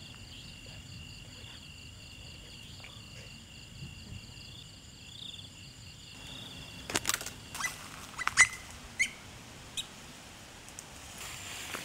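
Night insects trilling in a steady, high, pulsing chorus until about six seconds in. After that comes a run of sharp clicks and short chirps.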